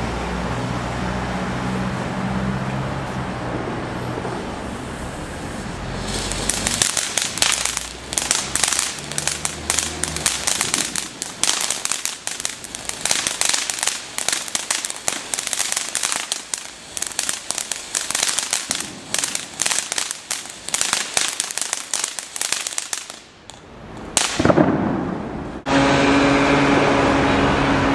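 Ground fountain firework spraying sparks with dense, irregular crackling for about seventeen seconds, after a steady low rumble at the start. Near the end there is a brief surge, then a steady hiss with a low hum.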